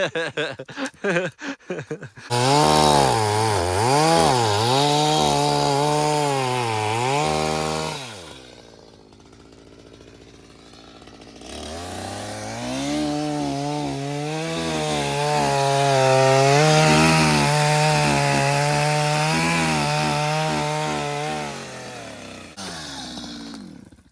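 Stihl two-stroke chainsaw revving hard while cutting logs, its pitch dipping and rising. It eases off for a few seconds, then runs hard again before dying away near the end. A quick run of sharp knocks comes in the first couple of seconds.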